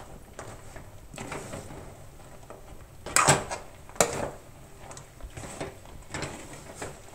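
Spatula scraping and knocking against a metal kadhai while sticky fried besan sev are stirred through jaggery syrup, with two louder scrapes a little after the middle.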